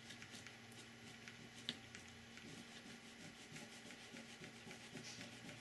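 Faint rubbing of a cloth buffing Rub 'n Buff metallic wax onto a painted 3D-printed ABS plastic piece, in repeated short strokes, bringing up a shine on the raised areas.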